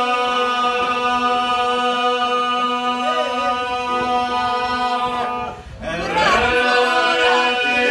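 Albanian iso-polyphonic singing without instruments: a men's group holds a steady drone (the iso) while voices wind a melody above it. Near the end the drone breaks off briefly for a breath, then a new phrase starts.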